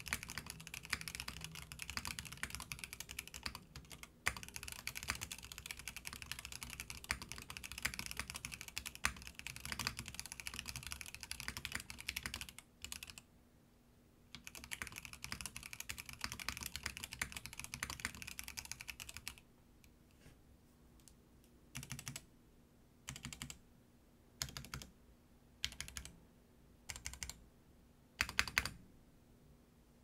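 Mechanical keyboard with Gateron Ink Black V2 linear switches being typed on fast in a dense stream of keystrokes, broken by a short pause about halfway through. In the last third the typing thins to six short separate bursts of a few keystrokes each.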